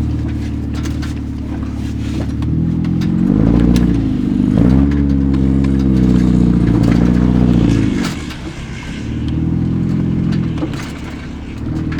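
Vehicle engine revving hard under load. It climbs in pitch about three seconds in and holds high for several seconds, drops back, then revs up twice more.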